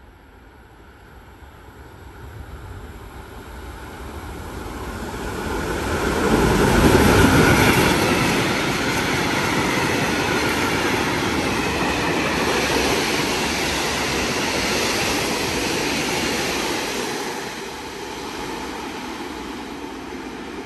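A train passing through a station without stopping: a rushing rumble of wheels on rail that builds over about seven seconds, stays loud for about ten seconds, then eases off near the end.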